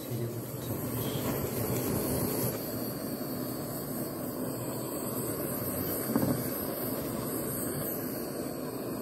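Handheld kitchen blowtorch burning with a steady hiss, with a light knock about six seconds in.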